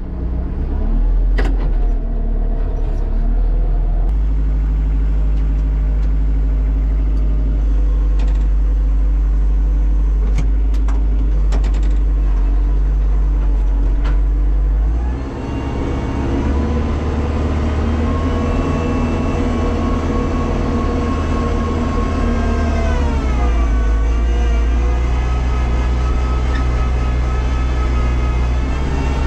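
Kubota tractor's diesel engine and PTO-driven front snowblower, heard from inside the cab. The engine runs steadily with a few sharp clicks, then about halfway through its pitch rises and holds as the snowblower throws snow. Near the end the pitch sags briefly and recovers as it takes a load of snow.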